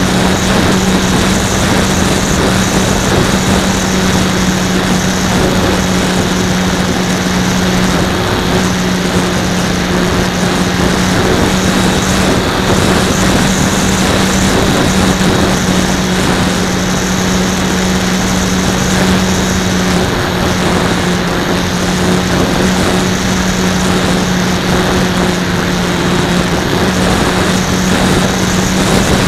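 Electric motor and propeller of a Super Cub S RC plane running steadily in flight, heard close up from an on-board camera, a steady drone whose pitch shifts slightly a couple of times. Wind noise over the microphone runs underneath.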